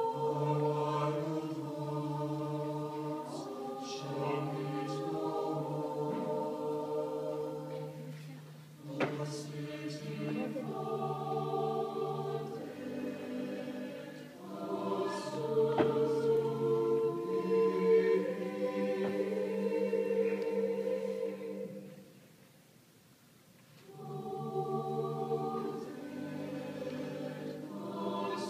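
Mixed chamber choir singing slow, sustained chords. About three-quarters of the way through, the voices stop for a short pause of about two seconds, then come back in.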